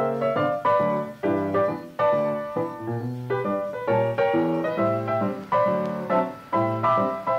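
Background piano music, with notes and chords struck every half second or so, each fading away.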